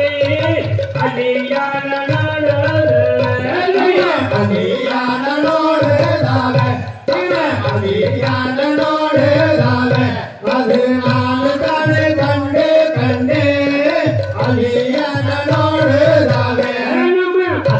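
Music for a Valli Kummi folk dance: a voice sings a flowing melody over a steady, rhythmic drum beat, with two brief breaks in the music.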